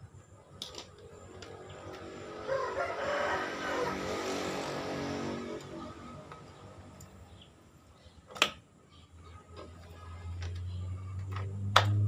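A rooster crows once, a call of about three seconds that rises and falls. Later comes a sharp click, and near the end a low steady hum builds, with another click.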